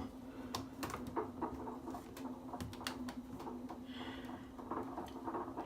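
Samsung washing machine running its rinse and spin cycle: a steady low hum with irregular light patter and clicks over it. The machine is running stably, without vibrating.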